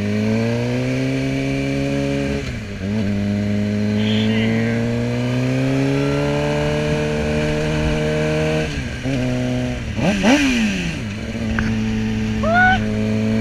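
Sport motorcycle engine pulling hard through the gears, its pitch rising steadily and dropping sharply at upshifts about two and a half and nine seconds in. Around ten seconds in the revs dip and climb quickly, then the engine settles at a steady, lower pitch.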